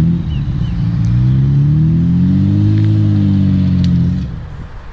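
Nissan Skyline R32 GT-R's straight-six engine revving as the car pulls away. Its note rises for about three seconds, then falls and fades about four seconds in.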